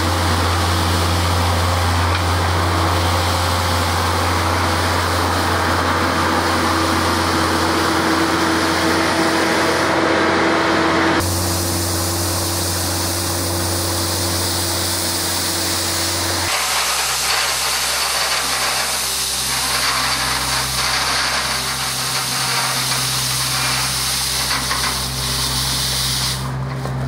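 Avant 635 articulated mini loader running steadily with its front rotary snow brush spinning at high speed: a steady engine hum under the hiss of snow being swept and thrown. The sound shifts abruptly twice, about eleven and sixteen seconds in.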